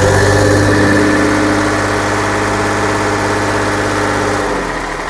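New Holland 3630 tractor's three-cylinder diesel engine idling with a steady note, which stops about four and a half seconds in.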